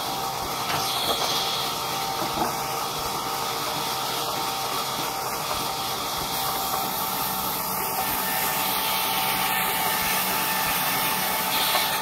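Large belt-driven sawmill band saw running steadily as a wooden plank is fed through the blade: a continuous hissing machine noise with a steady hum.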